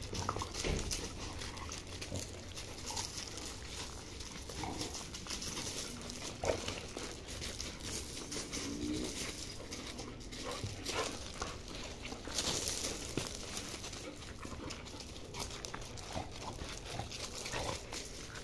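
Two dogs, a Belgian Malinois and a mixed-breed, play-fighting: irregular scuffling and crunching of paws on gravel, with a few brief vocal sounds from the dogs.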